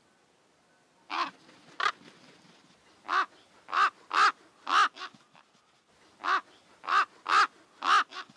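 A crow-family bird cawing, about eleven short caws in three runs of two, four and five, with pauses of about a second between the runs.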